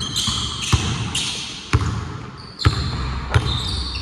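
Basketball bouncing hard on the court about once a second, with sneakers squeaking on the floor in between.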